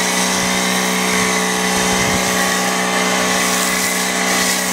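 Electric pressure washer running with the trigger held, its motor and pump humming at a steady pitch under the hiss of a foam cannon spraying soap foam onto a car.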